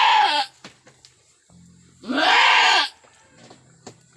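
Goat doe in a difficult labour bleating loudly in long cries: one call ends about half a second in, a full call comes about two seconds in, and another begins right at the end.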